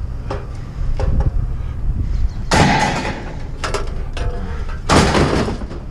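Sheet-metal light fixture housings knocking and clattering as they go into a pickup truck bed: a few light knocks, then two loud clatters about two and a half and five seconds in.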